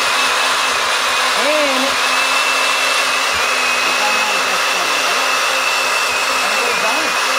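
Countertop blender running steadily at speed on its icy-drink setting, crushing ice into red Kool-Aid to make a slushie. A loud, even motor noise with a steady high whine over it.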